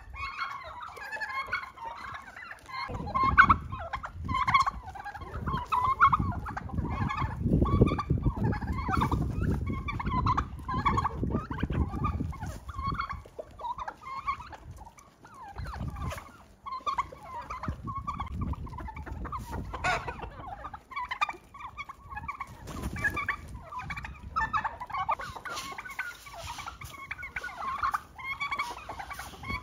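A flock of domestic turkeys and chickens calling continually as they crowd round to be fed, many short calls overlapping. A low rumbling noise runs under them through much of the first half and returns in patches later.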